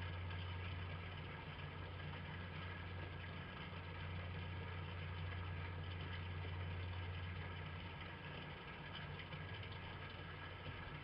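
Steady low hum with an even background hiss, unchanging throughout.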